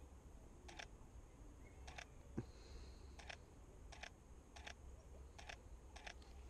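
About eight light clicks from a Canon 5D Mark IV's controls as photos are scrolled through on its rear screen, with a single low knock about two and a half seconds in, the loudest sound.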